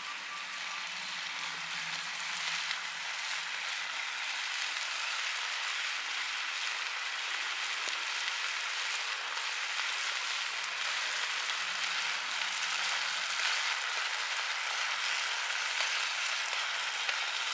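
Food sizzling and frying in a hot pan: a steady hiss with fine crackling throughout.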